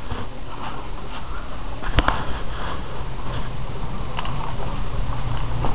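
Steady low rumble and rustle of movement on a helmet-mounted action camera's microphone as the wearer walks, with one sharp click about two seconds in.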